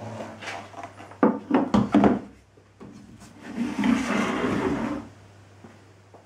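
Wooden bending-form pieces knocked and slid on a wooden workbench: several sharp knocks a little over a second in, then a scraping slide near the end.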